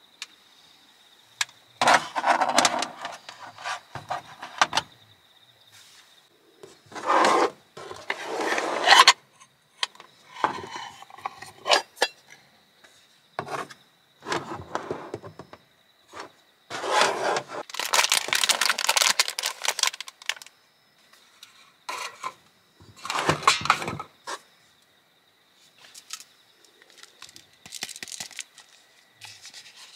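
Objects being handled in repeated bursts of rustling and scraping, with sharp clicks and knocks in between.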